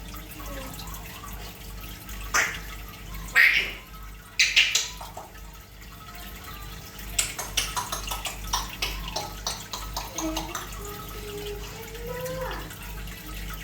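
African grey parrot making a string of its own noises: three loud, harsh squawks in the first half, then a quick run of clicks, then soft gliding whistles near the end.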